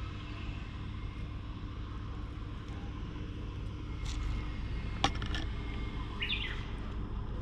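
Outdoor ambience with a steady low rumble, a sharp click about five seconds in, and a short high chirp, like a bird's, about a second later.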